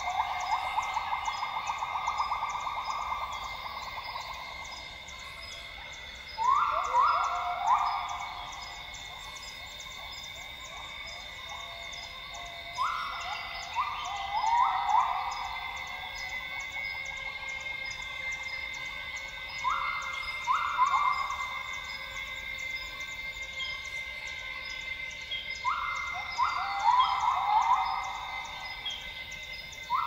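Northern grey gibbons (Hylobates funereus) singing: a rapid run of notes fades out over the first few seconds, then short phrases of rising whoops come about every six to seven seconds. A steady insect drone and fast, regular insect pulsing run underneath.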